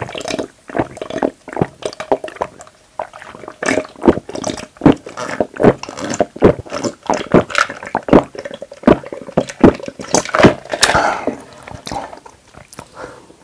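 Rapid, repeated gulping as a person drinks a glass of iced dark drink down, heard close to the microphone: a long run of wet swallows and small clicks that eases off near the end.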